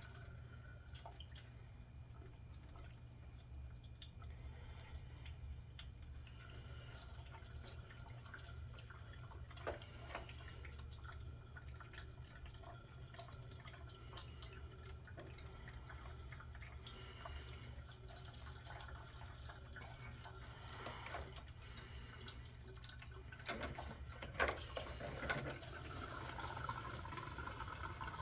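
Gasoline trickling slowly from a Scepter gas can's spout into a lawn mower's fuel tank, a thin steady pour with a few light knocks. Near the end the pour takes on a higher tone.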